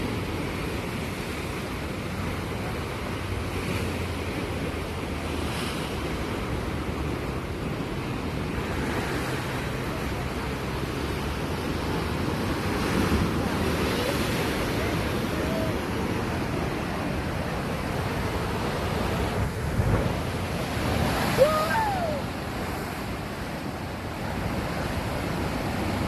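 Sea waves washing onto the shore, a steady surf that swells and eases as waves break, with wind buffeting the microphone.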